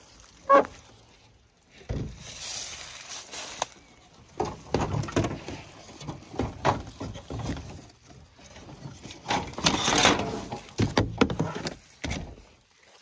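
Irregular knocks, clunks and scraping as junk and parts are moved about inside an old abandoned car, with a short pitched squeak about half a second in.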